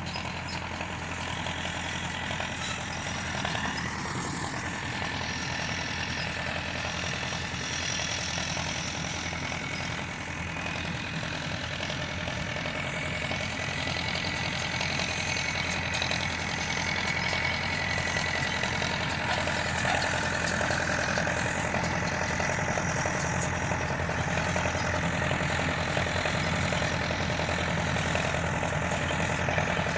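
Tractor engine running steadily, growing a little louder about halfway through.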